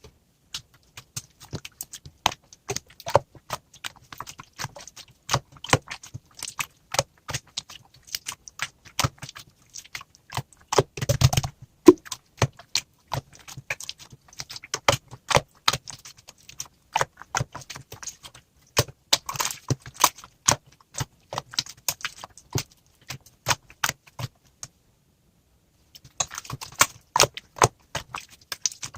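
Rapid, irregular clicking and rattling, like small hard objects being handled, with a louder knock about eleven seconds in and a short pause of about two seconds near the end.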